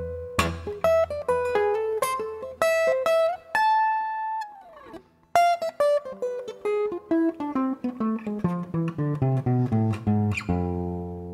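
Solo acoustic guitar playing an instrumental passage of quick single-note picked lines. About four seconds in, a held note slides down in pitch and fades to a brief pause. Then comes a long descending run of notes that ends on a ringing chord near the end.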